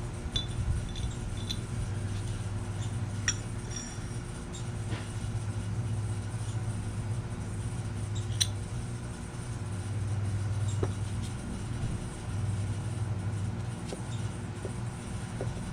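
Scattered light metallic clicks and clinks from hand tools and small screws as the cylinder-head screws of a Viair air compressor are taken out, over a steady low hum.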